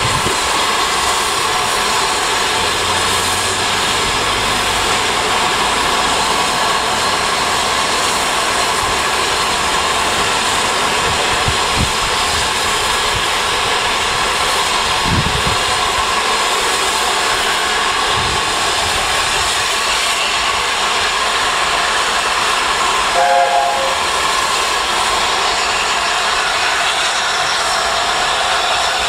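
Steady hiss of steam from standing steam locomotives. A short, chord-like steam whistle toot sounds about 23 seconds in.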